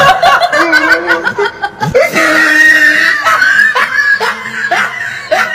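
High-pitched laughter in repeated bursts, with shrieks, each burst swooping in pitch.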